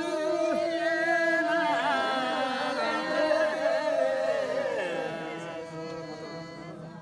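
A group of voices singing a traditional folk dance song together in long, drawn-out, chant-like notes, fading out over the last couple of seconds.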